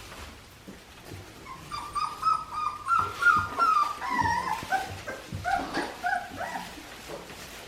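Young Australian Shepherd puppies whimpering and yipping: a run of short, high whines that starts about a second and a half in and rises and falls in pitch.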